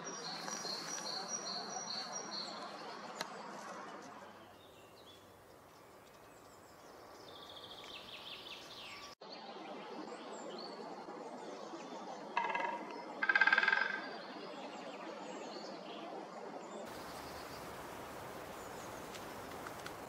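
Birds calling over steady background noise: a quick run of high notes at the start, a falling series of notes around eight seconds in, and two loud, lower calls about twelve to fourteen seconds in, the second longer.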